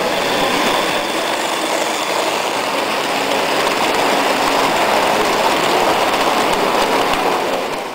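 Vintage model train running on metal track, passing close by with a steady rattling run of its motor and wheels. The sound fades out at the very end.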